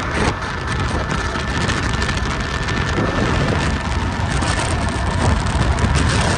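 Wind rushing and buffeting over the microphone while riding a Kaabo Wolf King GT 72-volt electric scooter at speed, with a faint steady high whine from the electric motor underneath.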